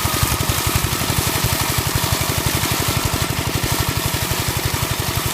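Motor-tractor's engine running steadily, its firing pulses coming fast and even.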